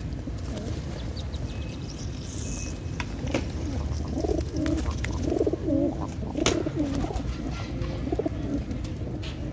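A flock of racing pigeons cooing, with several wavering coos overlapping from about three seconds in, and a few sharp clicks scattered among them.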